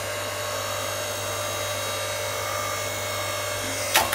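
Titan 4-ton electric hydraulic log splitter running, its motor and pump giving a steady hum and whine as the ram pushes into a log. About four seconds in there is a sharp crack as the log splits.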